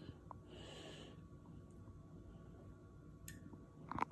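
Quiet room with a short sniff through the nose about half a second in, and a brief sharp click near the end.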